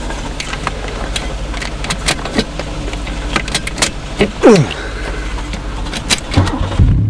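Old car engine being cranked over by its starter amid clicks and clatter, with a short falling whine midway, then catching and running steadily near the end on a freshly fitted battery.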